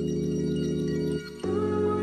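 Soft ambient background music with held chords. The chord changes about a second and a half in.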